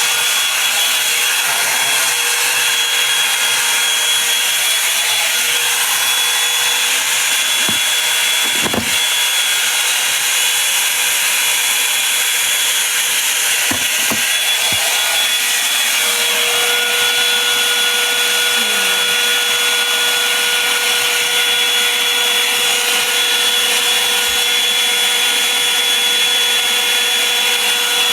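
Handheld hair dryer running steadily: a rush of blown air with a high motor whine over it.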